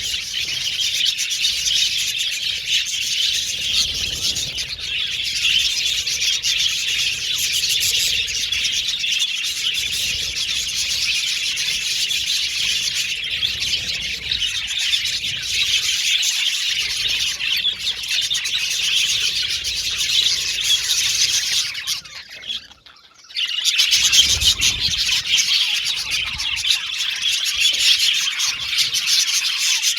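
Budgerigars chirping and warbling together in a dense, continuous chatter, broken by a brief gap about twenty-two seconds in.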